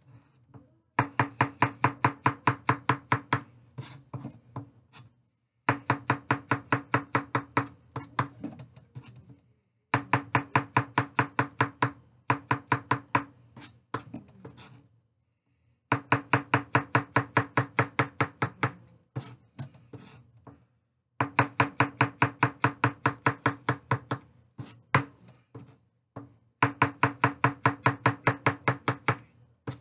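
Chef's knife slicing mushroom caps on a cutting board: six runs of quick knife strikes, about five a second, each run a few seconds long with short pauses between.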